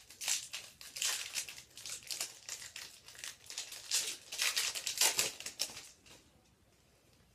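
Crinkling and tearing of a plastic trading-card pack wrapper being ripped open and handled, in repeated crackly bursts for about six seconds.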